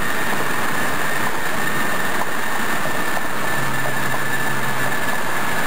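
Steady road and wind noise inside a car's cabin while cruising at highway speed, with a thin high tone running under it.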